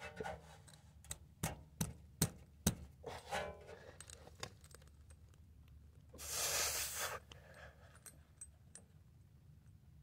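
Tire plug insertion tool being worked into a puncture in a tire's tread, with a run of sharp clicks and knocks in the first three seconds. About six seconds in comes a breathy rush of noise lasting about a second.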